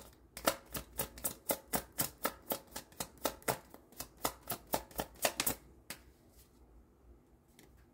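Deck of tarot or oracle cards being shuffled by hand: a quick run of sharp clicks and slaps, about four or five a second, stopping about five and a half seconds in, with one last click shortly after.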